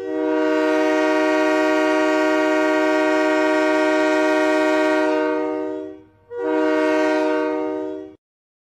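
Diesel locomotive air horn sounding a chord of several notes: one long blast of about six seconds, then a short blast of about two seconds.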